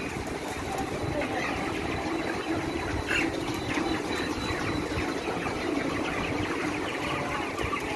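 A flock of caged chickens clucking and calling all at once, making a dense, steady din of many overlapping short calls.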